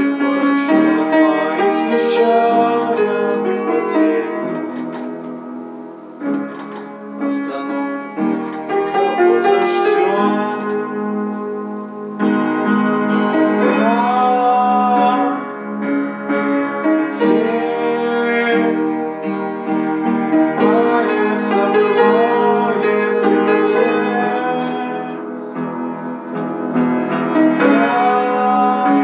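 A song sung over a piano or keyboard accompaniment, the voice holding and sliding between notes across steady chords.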